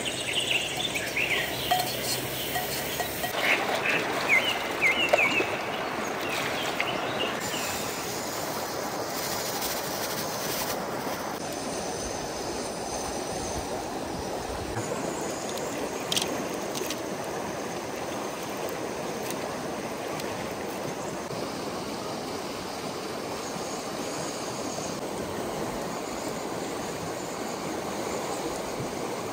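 Outdoor ambience: birds chirping for the first few seconds over a steady rushing noise that carries on evenly after they stop.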